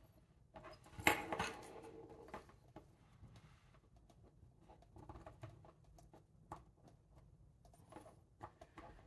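Faint small clicks and scrapes of small hand tools working the bent-over tabs on the links of a metal expansion watch bracelet, with one sharper click about a second in.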